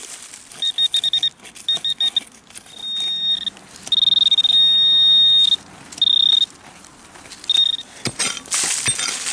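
High electronic beeping from a metal detecting pinpointer probed into the hole. It comes first in quick pulses, then in longer solid tones, which signals that the tip is close to a metal target, here an old lead bullet. Near the end there is a burst of scraping in the dirt as the soil is dug out.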